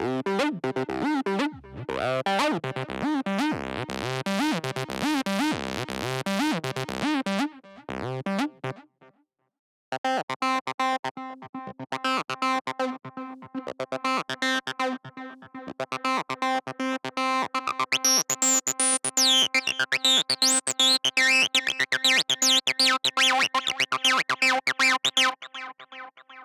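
Arturia Acid V, a software TB-303-style acid synthesizer, playing two factory presets. First comes a squelchy acid sequence whose resonant filter sweeps up and down; it stops about nine seconds in. After a second of silence a second preset starts: a fast pulsing sequence of short notes that brightens as its filter opens partway through.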